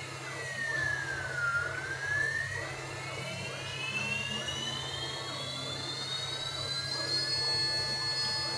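A small CNC router with an 800 W VFD-driven spindle running during a test carve. A high whine falls in pitch over the first second and a half, then climbs slowly and settles steady near the end, over a steady low hum.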